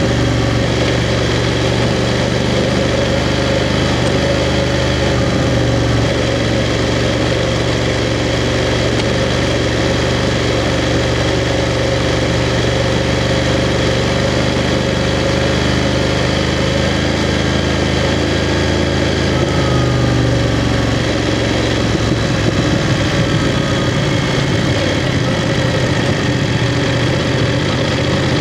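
BMW F 750 GS's parallel-twin engine running at low, fairly steady revs, its pitch shifting a little about three-quarters of the way through.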